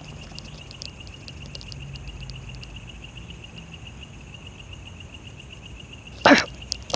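Night insects trilling steadily, with scattered faint high clicks. About six seconds in, a man lets out one short, loud, forceful vocal burst that falls in pitch.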